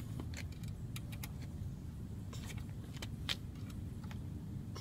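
Scattered light clicks and taps from hands handling the tile saw's head, handle and cord, over a steady low rumble.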